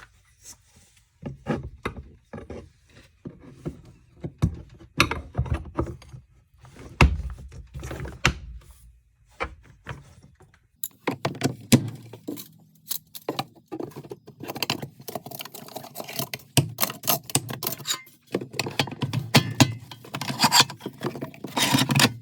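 Items being handled and loaded onto conduit rods in a plastic tool crate: a long run of irregular clicks, knocks and thunks, busier from about halfway.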